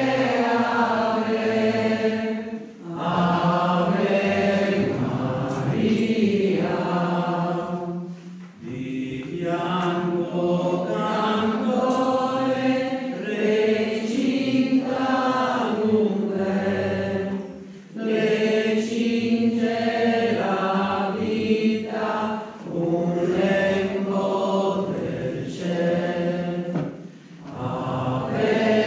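A group of voices singing the entrance hymn of the Mass in phrases of a few seconds, with short breaks for breath between them.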